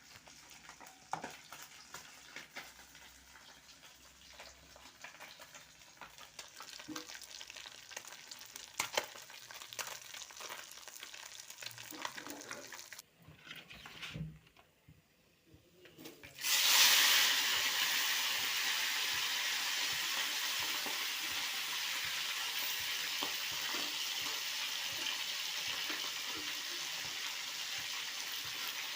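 Scattered small clicks and taps of kitchen handling, then after a brief quiet gap a sudden loud sizzle as fish goes into hot oil, settling into steady frying that slowly eases.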